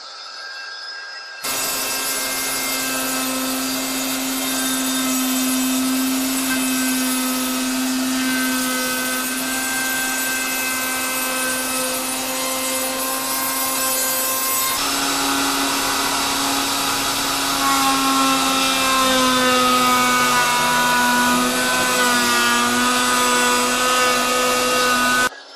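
Wood router running, cutting an edge profile into a hardwood board: a loud steady whine that starts about a second and a half in, sags and wavers in pitch toward the end, and stops abruptly just before the end.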